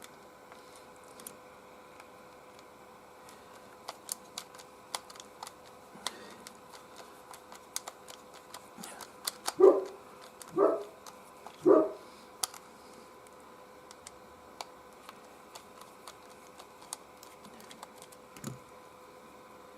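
Small clicks and ticks of a screwdriver with a two-prong (spanner) security bit working screws out of a plastic travel hairdryer housing, with three short squeaks about halfway through.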